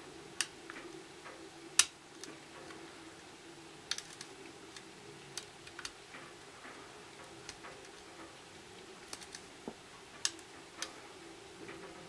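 Lock pick and tension wrench working the spool-pinned pin tumblers of a Kwikset dead latch: scattered, irregular small metallic clicks as the pins are lifted and set, with one sharper click about two seconds in.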